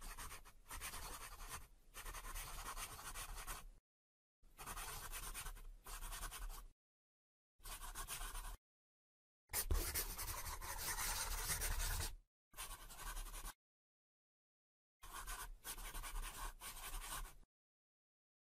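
Marker pen scratching as it draws, in about six separate strokes of one to three seconds each, with dead silence between them.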